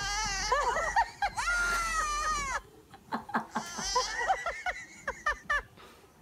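Baby goat screaming: one long, high, human-like yell of over two seconds, then a run of shorter cries.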